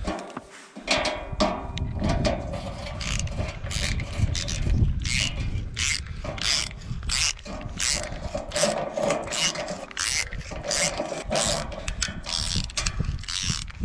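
Ratchet wrench driving a 7.5 × 60 mm self-tapping concrete screw through a galvanized steel mounting foot into masonry: a steady run of ratchet clicks as the handle swings back and forth, about two to three a second, with the grinding of the screw's notched thread cutting into the concrete.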